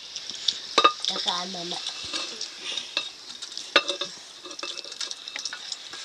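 Food sizzling as it fries in a pan while it is stirred, with sharp knocks of the stirring utensil against the pan every second or so.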